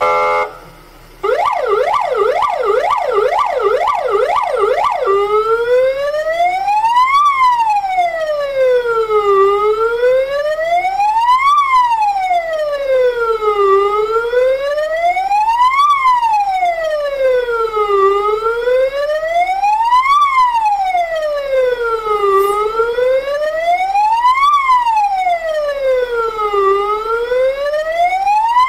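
A KAMAZ fire engine's electronic siren. It gives a short steady blast, then after a brief gap a fast yelp of about two sweeps a second. About five seconds in it changes to a slow wail, rising and falling every four seconds or so.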